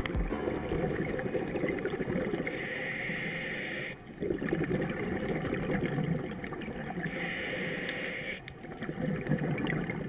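Scuba diver breathing through a regulator, heard underwater through a camera's dive housing. Two hissing inhalations come about two and a half and seven seconds in, each followed by a bubbling rush of exhaled air.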